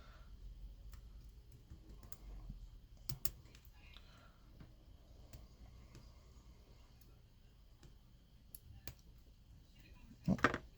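Master Lock M15 padlock being picked: faint, scattered clicks of the pick and tension wrench working the pins, then a louder clatter of sharp clicks near the end as the lock opens.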